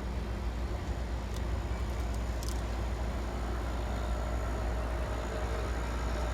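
Strong wind rumbling and buffeting on the microphone during a windstorm, with a faint steady hum coming in about four seconds in.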